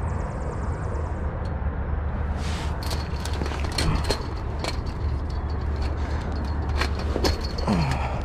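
Clanks and rattles of a wire fence being climbed, with sharp irregular clicks starting about two and a half seconds in, over a steady low rumble.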